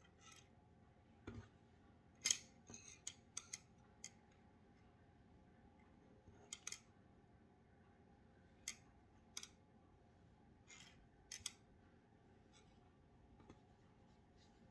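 Steel double-pointed knitting needles clicking and tapping against one another as the sock on them is handled. The clicks are sharp and scattered over a quiet background, with a loose cluster a couple of seconds in and single clicks after that.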